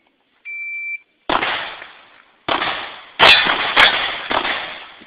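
Shot timer's start beep, one steady high tone about half a second long, then a handgun firing about five shots at uneven spacing, each shot trailing off in echo.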